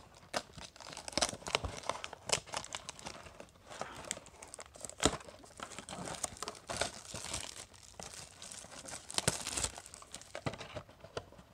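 Plastic shrink-wrap being picked at, torn and crinkled off a cardboard trading-card box, in many sharp irregular crackles.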